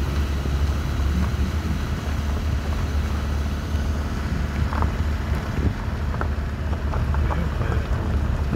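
Car driving slowly on a dirt road, heard from inside the cabin: a steady low rumble of engine and tyres, with wind buffeting the microphone.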